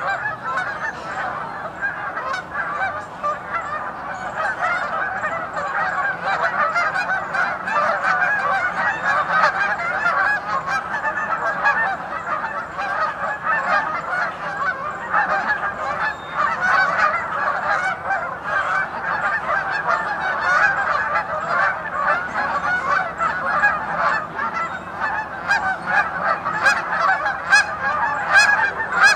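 A large flock of geese honking all at once, a dense, unbroken chorus of overlapping calls.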